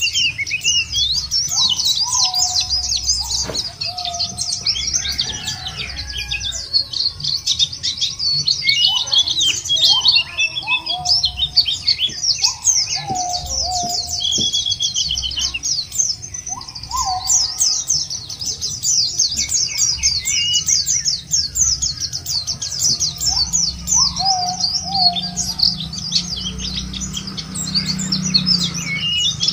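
Pleci (white-eye) song: a dense, continuous run of rapid high chirps and twitters from several birds, played as a stimulus recording to make caged pleci sing. Under it, a lower call that steps down in pitch repeats about every one to three seconds, from the puter dove named in the title.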